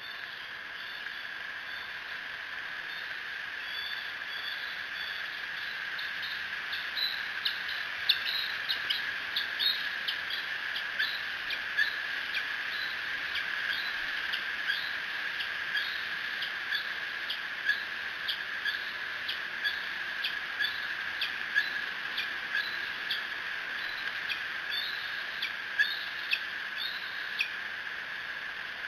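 Bald eagle fledglings give a long run of high, squealing food-begging calls (squees), short gliding notes repeated every half second or so. They grow frequent several seconds in and stop just before the end, over a steady high hum.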